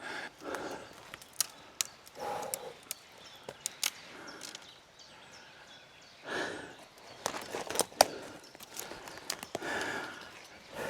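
Footsteps tramping through soft, mossy, uneven undergrowth, with vegetation brushing and scattered sharp cracks, the loudest about 8 seconds in.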